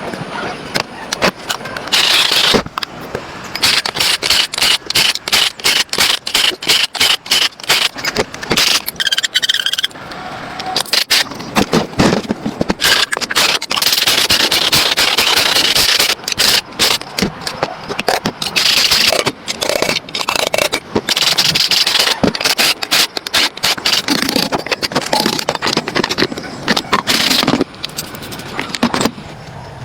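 Scraping and rapid clicking and knocking from work on a car, with bursts of hiss, pausing a couple of times.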